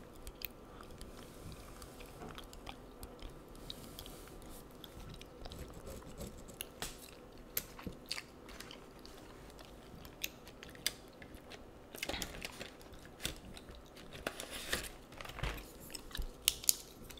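Close-miked chewing gum: wet smacks and clicks at irregular intervals, with a few louder bursts of chewing in the second half.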